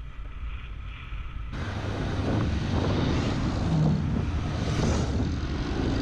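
Motorcycle engine running and wind rushing over the microphone as the bike rides through traffic. About one and a half seconds in the sound jumps suddenly louder and stays loud and steady.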